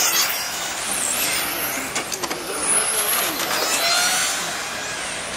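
Radio-controlled cars racing round a track, their motors whining high and gliding up and down in pitch as they speed up and slow down, with a few sharp clicks about two seconds in.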